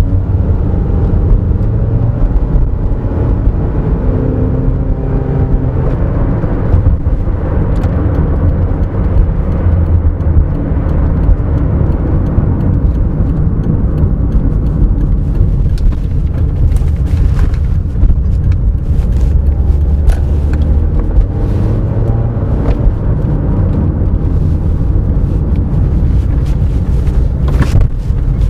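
Inside the cabin of a 2011 Toyota RAV4 on the move: its 2.0-litre engine running through the CVT, with a steady rumble of tyres and road. There are a few short clicks or knocks in the second half, the clearest near the end.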